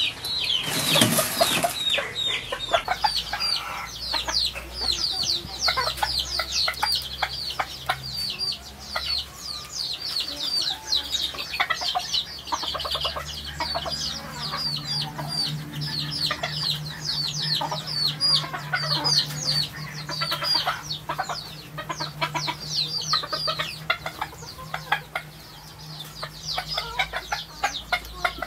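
Chickens calling: a dense, continuous run of short, falling chirps. A brief rushing noise comes about a second in, and a low steady hum sets in a little before halfway.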